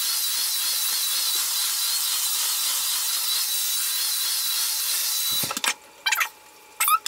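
Handheld hair dryer with a comb attachment running on its high setting: a steady hiss with a faint wavering whine. It cuts off about five seconds in, and a few short separate sounds follow.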